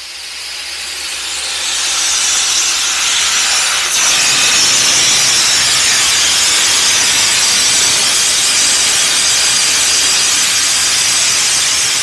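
Steady, loud hiss of a jet from a hose-fed lance aimed at a boat's hull at the waterline. It builds up over the first two seconds and then holds even.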